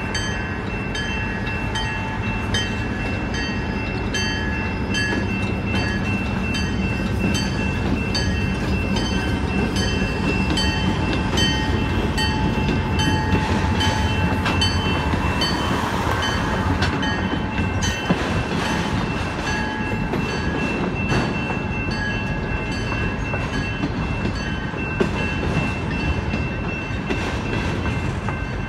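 General Signals Type-2 electronic crossing bell ringing in evenly repeated dings while a CN freight train passes. The diesel locomotives go by loudest around the middle, then autorack cars roll past with clattering wheels and occasional knocks over the crossing.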